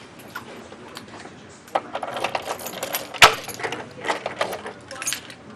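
A bunch of keys jingling and a key being worked into a door lock, a quick run of metallic clicks and rattles with one sharp click about three seconds in.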